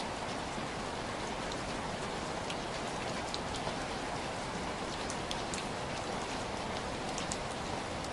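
Steady rain from the hurricane, an even rushing hiss with scattered sharp drop ticks.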